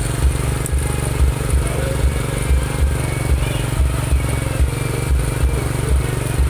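Honda Supra motorcycle engine running steadily at idle, with an uneven low throb.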